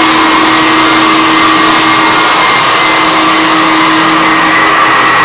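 Handheld edge sander grinding old black paint off hardwood floorboards along the baseboard, with a dust-extraction vacuum pulling through its hose: a loud, steady motor whine over a constant rush of noise.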